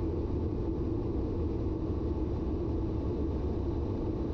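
Airliner cabin noise of an Airbus A330-200 with Rolls-Royce Trent 700 engines at cruise: a steady low rumble of airflow and engines, with a faint hum, unchanging throughout.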